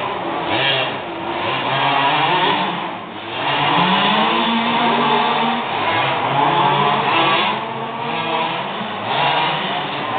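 Several large-scale petrol RC cars' small two-stroke engines revving up and easing off as they race around a track, their overlapping pitches rising and falling.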